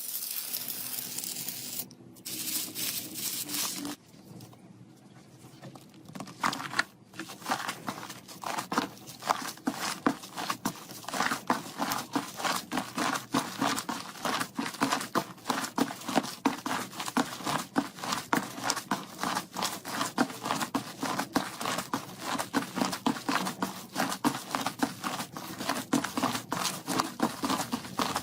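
Slime being squeezed and pressed by hand, giving a crinkly tearing texture at first, then after a short quieter patch a dense, fast run of sharp wet clicks and pops.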